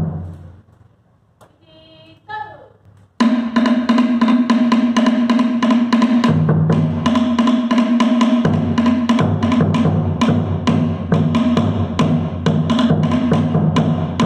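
Tahitian drumming: a single drum hit, a short shouted call about two seconds in, then from about three seconds in fast, continuous sharp wooden knocks on a to'ere slit drum over a steady low beat from a large rope-laced drum.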